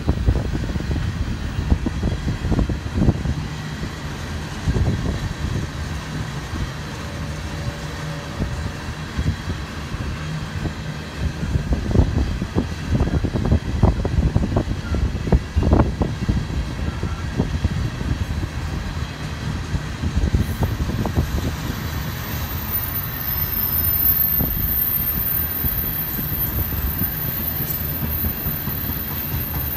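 Empty railroad tank cars of a freight train rolling past, with a steady low rumble and wheels clicking over the rail joints. Wind gusts buffet the microphone, and a thin high whine comes in about two-thirds of the way through.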